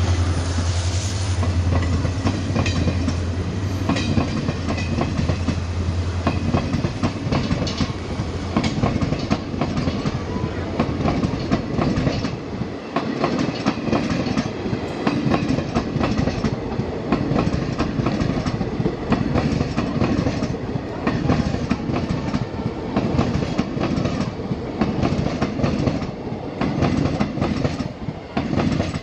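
ICF passenger coaches rolling past close by, their wheels clattering over the rail joints in a quick, repeating clickety-clack. A steady low drone from the WDP-4D diesel locomotive that has just gone by runs under the first eight seconds or so, then fades.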